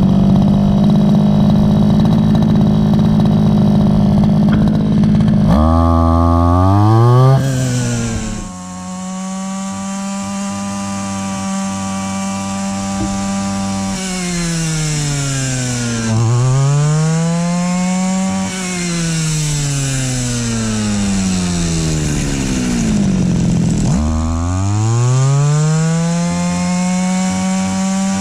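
Small two-stroke brush cutter engine running at high revs, with the throttle let off and opened again several times so the note dips sharply and climbs back up. The engine runs on a replacement aftermarket carburetor.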